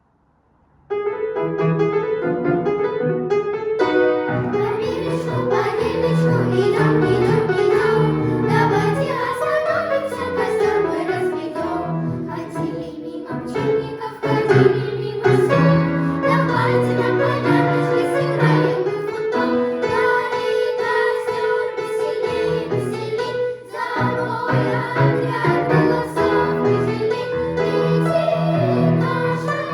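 Music starting about a second in: a song performed by a child's voice over instrumental backing.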